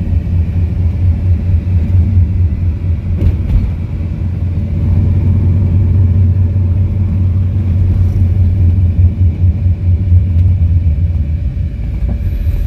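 Steady low rumble of a car on the move, heard from inside the cabin: engine and tyre noise while driving along the road.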